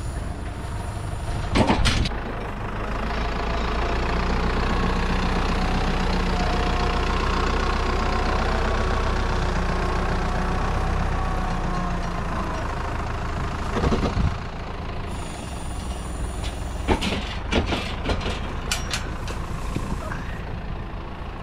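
Tractor engine running steadily, its note swelling and bending a little in the middle. Separate knocks about two seconds in and near fourteen seconds, and a quick cluster of sharp clacks a few seconds later.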